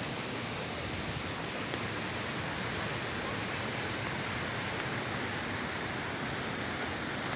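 Rushing river water: a steady, unbroken hiss.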